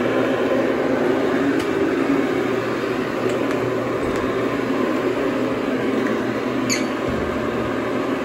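Carpet-cleaning machine's motor running steadily, with a brief high squeak about two-thirds of the way through.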